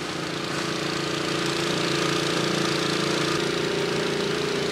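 Small engine of a portable water pump running steadily at a constant speed, pumping floodwater out through a discharge hose.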